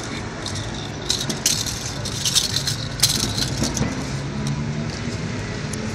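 Short jingling rattles from a plastic cage ball toy with a bell inside, in a few quick bursts between about one and three seconds in, over the steady low hum of a motor vehicle engine.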